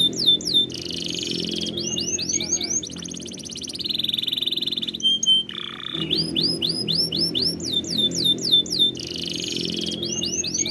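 Domestic canary singing: fast runs of repeated down-slurred whistles alternating with buzzy rolling trills and a short held note. The same sequence of phrases comes round again about six seconds in, as in a looped training-song recording.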